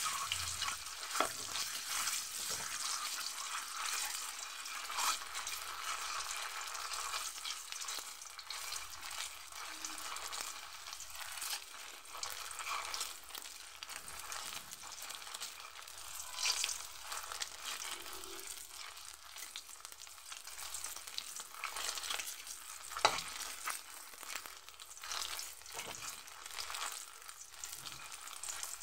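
Whole peeled boiled eggs frying in hot oil in an aluminium kadai, sizzling steadily, loudest in the first second or so. A flat metal spatula knocks and scrapes against the pan now and then as the eggs are turned.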